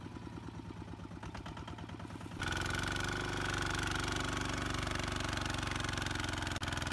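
Single-cylinder diesel engine of a two-wheel walking tractor running with a steady, even firing beat. About two and a half seconds in it becomes suddenly louder and stays so as the tractor works, its drive wheel spinning and digging into dry soil.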